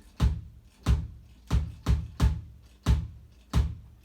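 Electronic drum kit's bass drum (kick) played with the foot pedal: seven hits in a kick-drum beat, some struck in quick pairs.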